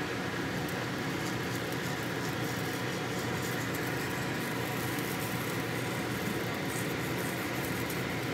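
Steady mechanical hum and hiss of background machinery, unchanging in level throughout.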